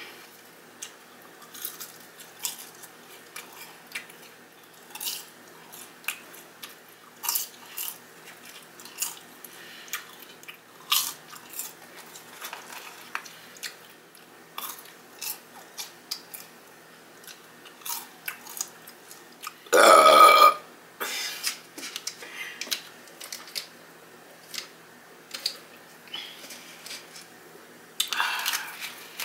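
Close-up crunching and chewing of fried chicken and French fries, many small crisp bites and mouth sounds. About two-thirds of the way through comes one loud burp lasting about a second, the loudest sound here.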